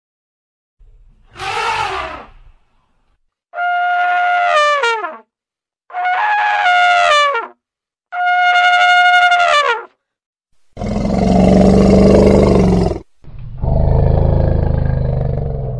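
African elephants trumpeting and roaring in six separate calls. Three clear, high trumpet blasts in the middle each drop in pitch at the end, and two long, loud, rough roars come near the end.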